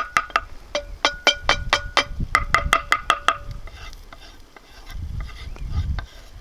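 A metal utensil stirring food in a metal cooking pan, knocking against it in quick ringing clinks, about five a second, that fade after about three and a half seconds.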